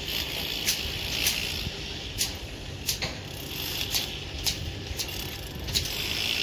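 Steel tie wire being twisted around slab rebar crossings with hand tying hooks by several workers: irregular sharp metallic clicks and clinks, one or two a second, over a steady low background rumble.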